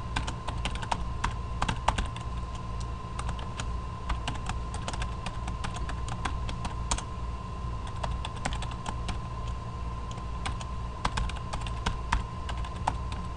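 Typing on a computer keyboard: quick runs of key clicks broken by short pauses. Underneath is a steady low hum and a thin steady whine.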